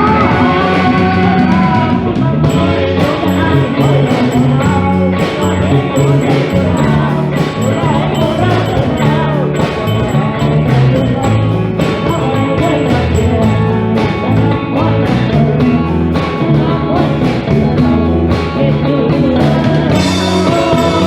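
Band music with drum kit, bass and guitar playing continuously; the drums come in with steady beats about two seconds in.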